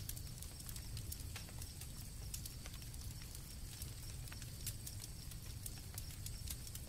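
Campfire crackling, with irregular sharp pops over a low rumble, and crickets chirring steadily behind it.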